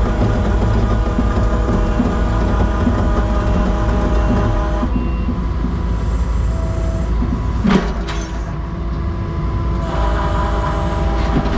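Skid steer running hard under load as it powers a stuck box truck out, a steady engine drone with a whine over it that drops off about five seconds in and picks back up near ten seconds. A single sharp knock sounds just before eight seconds.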